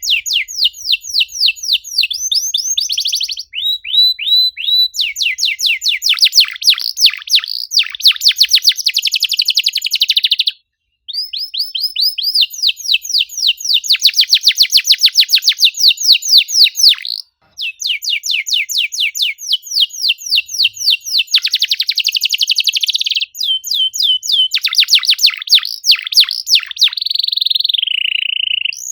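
Domestic canary singing fast, dense trill phrases, each a rapid run of repeated downward-sweeping notes, changing from one phrase to the next. The song breaks briefly twice, about a third and about two-thirds of the way through.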